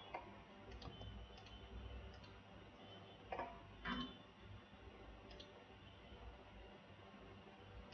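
Near silence with a few faint, sharp computer mouse and keyboard clicks, the two clearest about three and a half and four seconds in.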